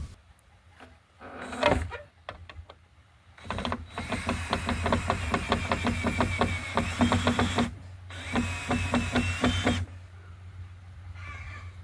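Power drill/driver running in two stretches with a rapid, even clicking, the second shorter after a brief pause, as when driving screws into wood. A short knock comes shortly before.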